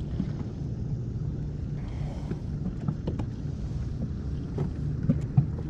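Steady low motor hum on a fishing boat, with scattered light clicks and knocks.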